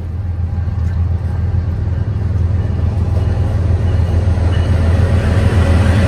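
Diesel freight locomotive approaching, its steady low engine rumble growing gradually louder.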